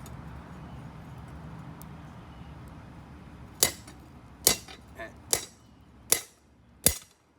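Hammer striking steel on an anvil: six sharp blows, one of them lighter, coming less than a second apart from about halfway in. A low steady noise runs under the first half.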